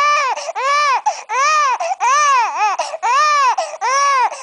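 Seven-week-old baby crying in a steady run of short wails, each rising and falling in pitch, about two a second: a fussy cry that his mother takes for hunger.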